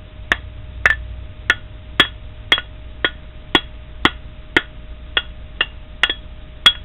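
Mower engine piston being tapped with a steel tool about thirteen times, roughly twice a second, each tap giving a short metallic ring. It is a ring test for hairline cracks: the solid ring marks the piston as sound, with no cracks.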